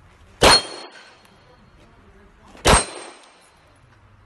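Two pistol shots, about two seconds apart, the first about half a second in; each crack is followed by a short high ringing.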